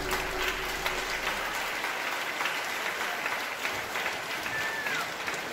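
Audience applauding at the end of a stage dance number, as the last of the show music fades out in the first second. A short falling whistle sounds near the end.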